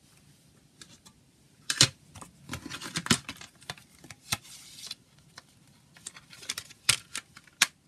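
A plastic CD jewel case and its paper booklet being handled: irregular sharp plastic clicks and clacks, loudest about two seconds in and twice near the end, with a short rustle of paper in the middle.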